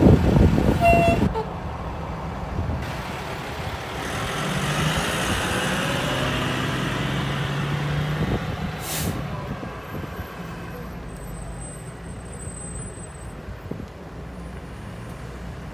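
Fire engines and trucks driving past: heavy engines rumbling, loudest in the first second, then a steady engine hum that swells and fades. A short hiss comes about nine seconds in.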